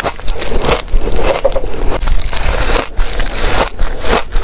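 Close crunching and chewing of fluffy white freezer frost: dense crackling bites, one after another, picked up by a clip-on microphone.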